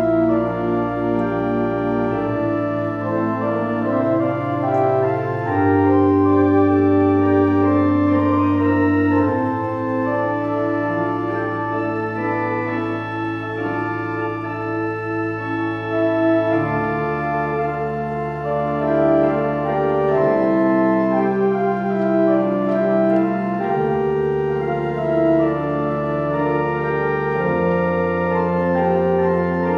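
Pipe organ playing slow sustained chords over long-held pedal bass notes that change every few seconds.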